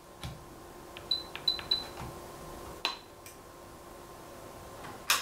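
Button presses on a benchtop signal generator's keypad: soft clicks, four of them with a short high beep, about one to three seconds in, then a sharper click near the end.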